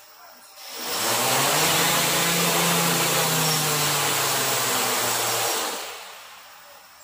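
A quadcopter's brushless motors spin up about a second in, run steadily for about four and a half seconds, then wind down near the end. The craft turns round on the floor instead of lifting: the yaw problem caused by its motors spinning in the wrong directions for the flight controller.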